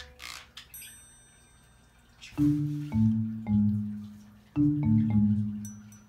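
Background music: a marimba-like melody with bell-like high notes, played in two short phrases a couple of seconds apart.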